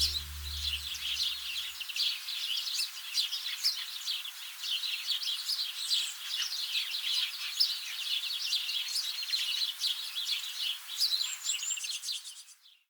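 Songbirds chirping, a dense chorus of many short overlapping calls, fading out near the end.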